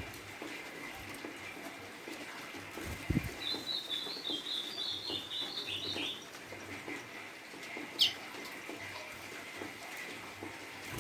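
Brown-plumaged golinha (white-throated seedeater) giving one short, high twittering phrase a few seconds in, over light pattering, with a low knock just before the phrase and a sharp tick later.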